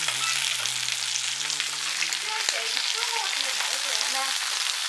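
Slices of pork belly sizzling on an electric tabletop grill: a steady frying hiss full of fine crackles of spitting fat.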